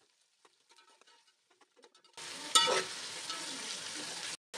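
Sliced onions frying in hot oil in a metal pot, stirred with a spoon. Faint crackles for about two seconds, then a steady sizzle starts abruptly, with one loud scrape of the spoon against the pot just after it begins; the sound cuts out briefly near the end.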